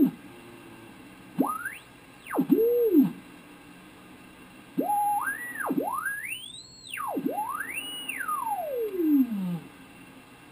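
Hallicrafters S-108 valve shortwave receiver giving heterodyne whistles as its dial is tuned across signals on the 40-meter band. Five pure tones slide up and down in pitch, one climbing to a shrill squeal, the last gliding slowly down to a low note, with faint receiver hiss between them.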